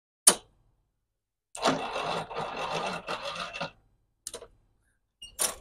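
Electric starter of a Craftsman push mower cranking slowly and weakly for about two seconds without the engine catching. It is fed by a three-cell 12-volt lithium battery left uncharged for two months, too weak to turn the engine over properly. A sharp click comes before the cranking and another near the end.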